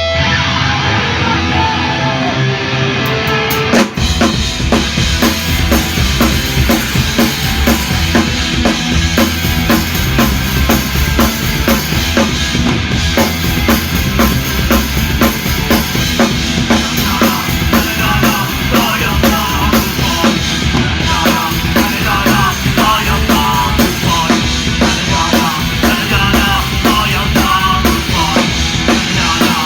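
Punk rock band music: a full band with a drum kit driving a steady beat under guitar and bass, the drums coming in hard about four seconds in.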